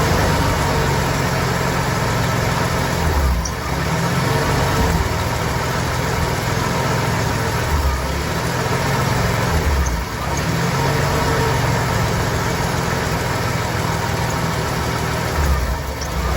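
Ford 300 cubic-inch (4.9 L) inline-six engine idling roughly. The running is uneven, dipping briefly every few seconds before it picks back up.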